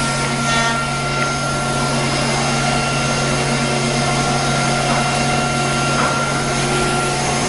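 Rotary-ATC woodworking CNC router running: a steady machine drone with a steady high whine over it.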